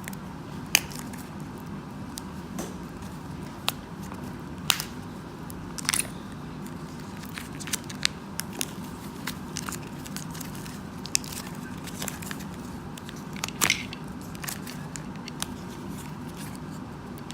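A trading card booster pack's wrapper being handled and torn open, giving scattered sharp crackles and crinkles over a steady low room hum.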